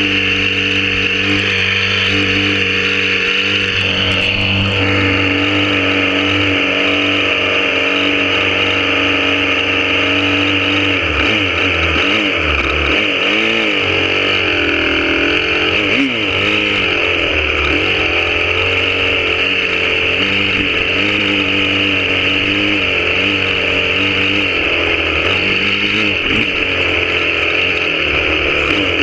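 Honda CRF250R dirt bike's single-cylinder four-stroke engine running under way, heard close up from on the bike. The note holds steady at first, then rises and falls with the throttle for several seconds around the middle before settling again.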